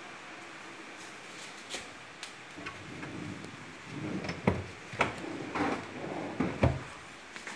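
Built-in wardrobe cabinet being handled: a run of sharp knocks and clatters of its doors or shelves, bunched in the second half, a few with a dull thud.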